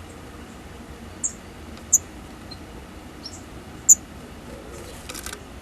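Daurian redstart giving short, very high chirps, four sharp ones about a second apart, then a quick run of faint ticks near the end.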